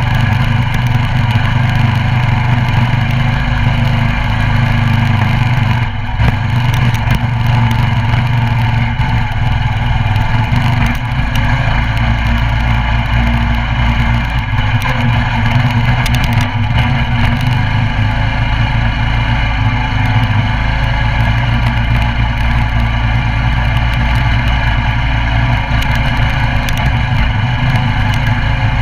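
Coleman CT200U mini bike's 196cc single-cylinder engine running at a steady speed under way.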